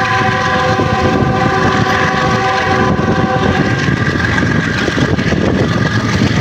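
A train horn sounds one long, steady blast that fades out about halfway through. Under it runs the noise of the moving train: wheels on the rails and rushing air.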